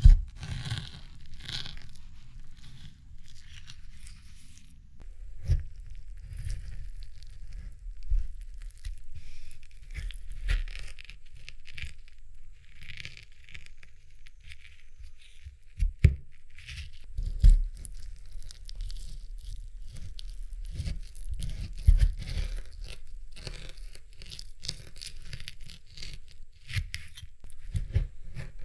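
Close-miked chilled jelly being cut: a run of wet, crackly tearing and scraping sounds as it is sliced and pulled apart, broken by several sharp knocks.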